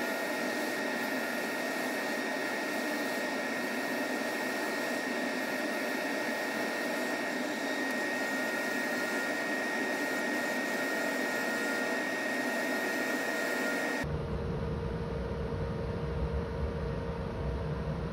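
Wood lathe spinning a segmented end-grain pen blank while a turning tool cuts it: a steady hiss with a thin high whine. About 14 seconds in the sound switches abruptly to a low rumble with the highs gone.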